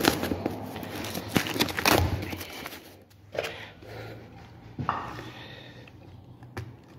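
A subwoofer being unpacked from its cardboard box and styrofoam packing, with cardboard and styrofoam scraping and rustling as they are handled, and several sharp knocks.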